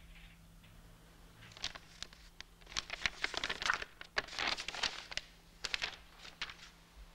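Paper rustling and crinkling in hands: a busy run of crisp crackles that thins out near the end.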